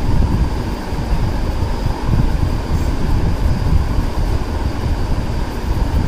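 Steady, loud, machine-like rumbling noise with a faint steady high whine, unchanging throughout.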